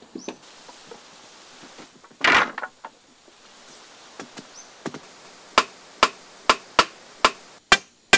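Wooden poles knocking as they are driven into the dirt: a series of sharp knocks at about two a second, uneven in spacing, starting a little past halfway. A short scraping, rushing burst comes a little over two seconds in.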